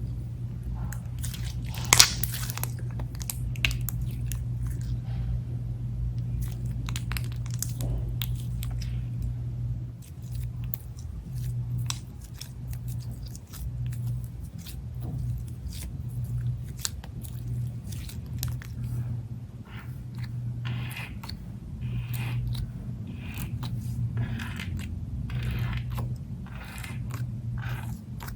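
Glittery clear slime being squished and stretched by hand, giving sticky crackling clicks and small air-bubble pops, with a sharp pop about two seconds in.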